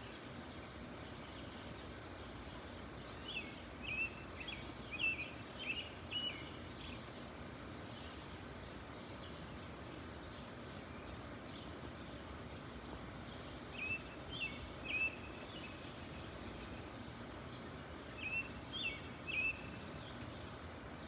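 A small bird chirps in three bouts of quick, high notes: a run of several a few seconds in, a shorter one midway and another near the end. The chirps are the loudest sounds, heard over a steady outdoor background hiss.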